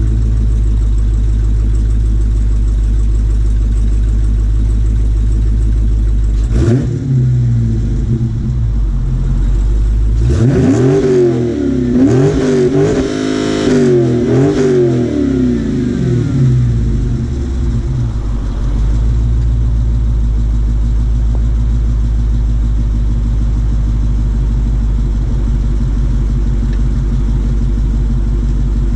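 2020 Dodge Challenger 392's 6.4-litre HEMI V8 on its factory exhaust, idling steadily. It is blipped once about six seconds in, then revved several times in quick succession in the middle before settling back to idle.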